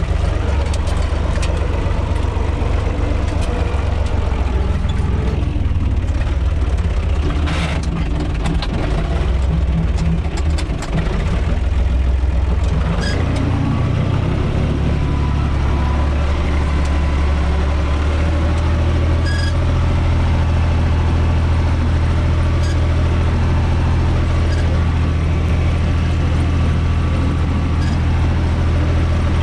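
UTB 445 tractor's diesel engine running, heard from inside the cab. Its note shifts about halfway through and then runs steadier, with a few short knocks over it.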